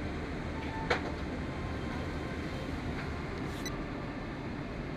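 Steady low hum of a Boeing 777-300ER's cabin with its air conditioning running, and a single sharp click about a second in.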